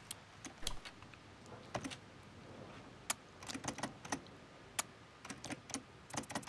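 Typing on a computer keyboard: irregular single keystrokes and short quick runs of key clicks.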